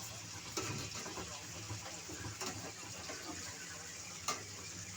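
Water running or pouring steadily, with a couple of sharp knocks, one about half a second in and a louder one near the end.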